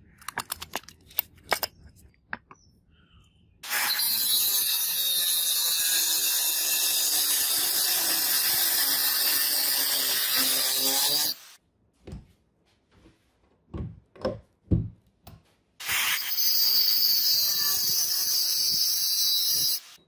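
Angle grinder with a cut-off disc cutting through a flat steel knife blank in two runs of several seconds each, each stopping abruptly. A few light clicks and knocks come at the start and between the two cuts.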